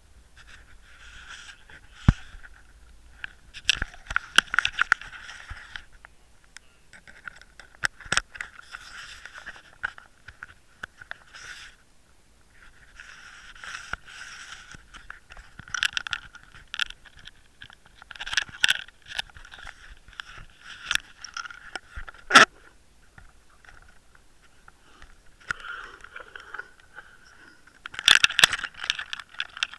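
Handling noise on the microphone of a small underwater camera: fingers and clothing rub and scrape against its case in irregular spells, with scattered sharp clicks and knocks as it is handled with a snap swivel and line attached.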